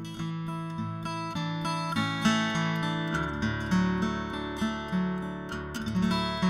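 Acoustic guitar music: plucked and strummed notes that ring and fade, with a fuller low line coming in about three seconds in.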